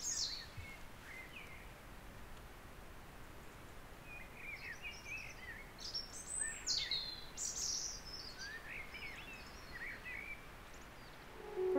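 Small birds chirping and calling on and off, short quick notes that bend up and down, thickest in the middle of the stretch, over a faint steady hiss.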